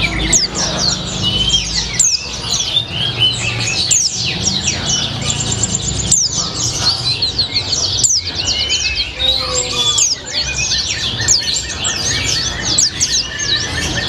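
Caged white-eye (pleci) singing a long, unbroken run of rapid high chirps, trills and short whistles, its song carrying sunbird-like (kolibri) phrases.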